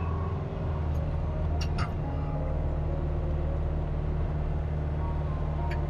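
Kubota RX-503S mini excavator's diesel engine running steadily, heard from the operator's seat, with a few short clicks about a second in and near the end.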